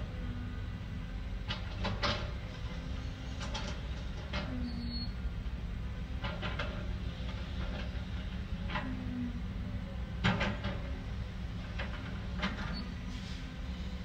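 Heavy earthmoving machinery at work: a crawler bulldozer's diesel engine running steadily under load, with repeated metallic clanks and knocks at irregular intervals from its steel tracks and the rocks being shoved.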